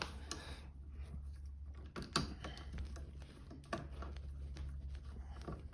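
A few light clicks and scrapes of stiff electrical wires being handled and twisted into a small twist-on wire connector, over a faint low steady hum.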